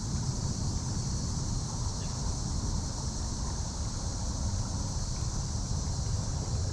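Wind rumbling on the microphone over a steady hiss of running creek water.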